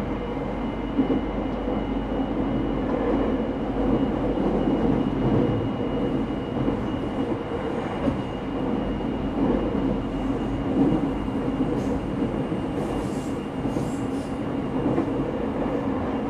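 Running sound heard aboard a JR 209 series 0 commuter train's motor car: steady wheel-and-rail rumble with a faint high steady tone, and a few sharp clicks in the second half.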